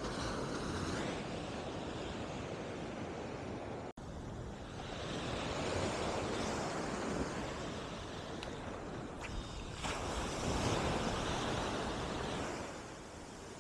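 Waves breaking and washing up on a sandy beach, the wash swelling and fading, with wind buffeting the microphone. A sudden momentary dropout about four seconds in.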